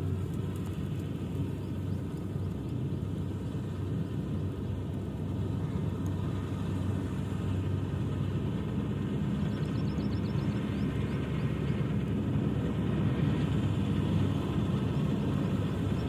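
Combine harvester running steadily as it cuts wheat: a continuous low engine drone with the noise of its machinery.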